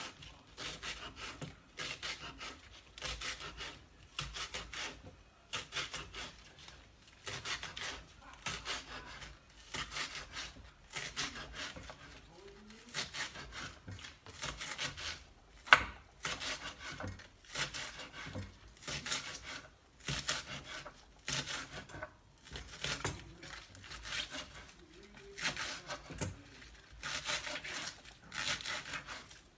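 Knife slicing through spring onions on a cutting board in steady, evenly repeated rasping strokes, a little over one a second, with one sharp knock about halfway through.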